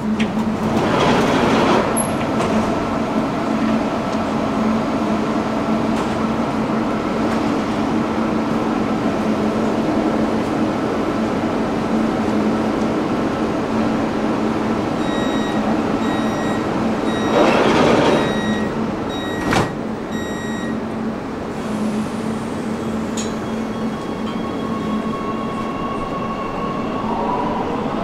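Warsaw Metro train running through the tunnel: a steady rumble and hum, with two brief louder rushes, about a second in and again about two-thirds of the way through, and a sharp click just after the second. Near the end a whine begins to rise in pitch as the train picks up speed.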